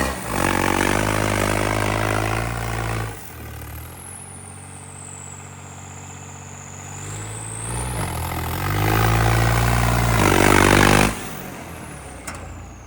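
Tractor diesel engine running, revved up for about three seconds, then dropping back to a steady idle, and revved again near the end before settling back to idle.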